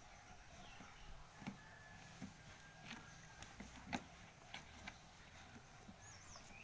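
Near silence: room tone with a few faint, scattered clicks and light taps.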